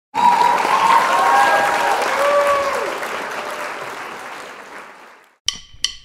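Audience applauding and cheering with whistling, loud at first and fading out over about five seconds. Two sharp clicks come near the end.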